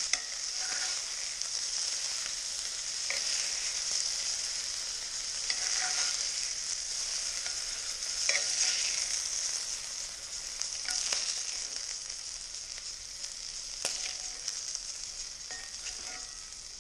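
Pieces of pheasant meat sizzling in oil in a frying pan, with a few brief clinks and scrapes of a utensil against the pan as the seared meat is lifted out. The sizzle eases off toward the end.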